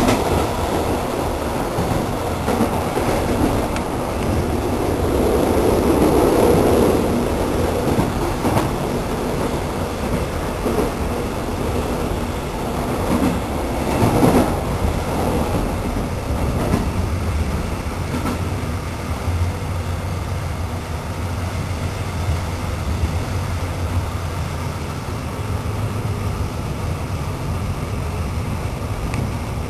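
Moving passenger train heard from on board: a steady rumble of wheels on rails with some clatter, swelling louder about five to seven seconds in and with a brief louder clatter about fourteen seconds in.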